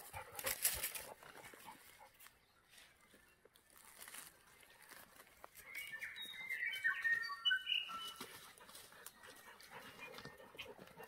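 Pig-hunting dog whining in short high notes about six to eight seconds in, after a brief noisy rustle at the start.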